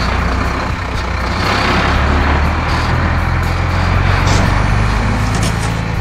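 Wheel loader engine sound effect running steadily, a low rumble with a rushing noise over it that swells in the middle, as the loader scoops and carries a bucket of dirt.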